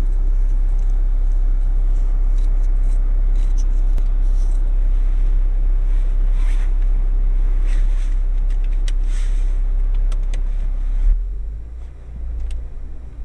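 Steady low rumble of a car heard from inside the cabin, with scattered light clicks. About eleven seconds in, the rumble drops and becomes uneven.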